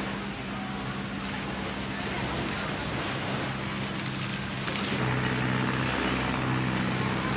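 Boat engine running steadily under way, with wind and water noise; the engine note grows stronger about five seconds in.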